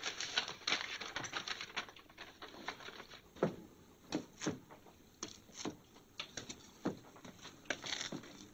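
Irregular footsteps of a boy's shoes on a stone-flagged porch, short scuffing taps about one or two a second, slow and uneven.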